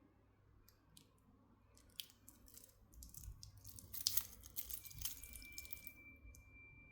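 Handling noise from a wristwatch and its packaging: scattered clicks that build into a busy stretch of clicking and rustling a few seconds in. A faint, steady high tone comes in near the end.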